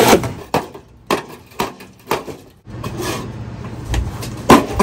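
A shovel knocking and scraping on a concrete floor, about twice a second. Near the end come a couple of loud hammer blows on old stair treads.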